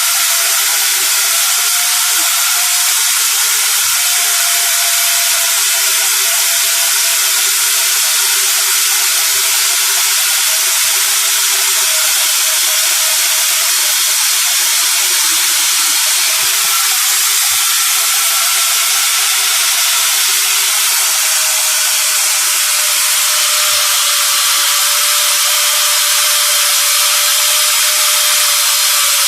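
Angle grinder fitted with a chainsaw attachment, running steadily: a motor whine over a loud hiss, the whine sinking a little in pitch about two-thirds of the way through.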